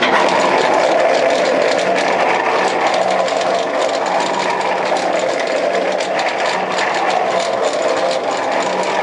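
Elevator machinery starting up abruptly and running, a steady hum with a fast, dense rattling clatter over it.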